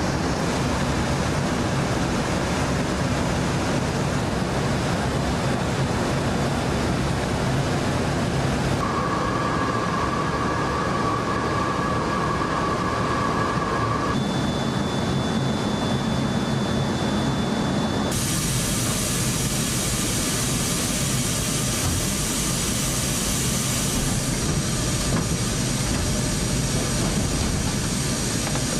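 Loud, steady cabin noise inside a C-17 transport jet, a deep rumble under a constant rush. It changes abruptly several times as the shots change, with a thin steady whine for a few seconds in the middle.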